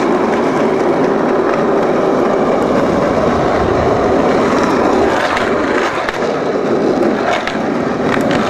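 Skateboard wheels rolling steadily over smooth pavement, with a few sharp knocks in the second half.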